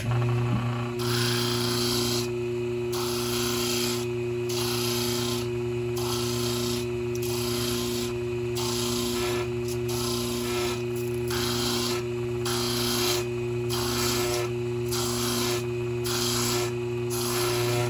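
Homemade sander driven by a washing-machine motor running with a steady hum while a small miniature-wheel part is pressed against it and ground down. The rasping comes and goes in short passes, each under a second, as the piece is pressed on and lifted to wear its edge to a 45-degree bevel.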